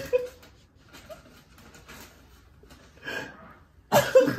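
Short non-speech vocal sounds in a small room: a breathy exhale about three seconds in, then a louder pitched groan or gasp near the end.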